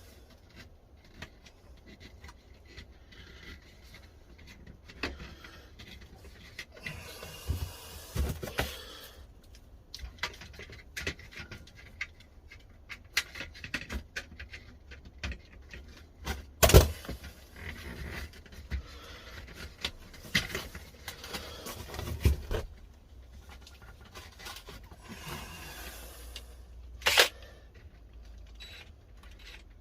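Scattered clicks, taps and scrapes of hands working on a plastic LED batten light fitting while fitting its wiring into the terminals, with a sharp knock a little over halfway through and another click near the end.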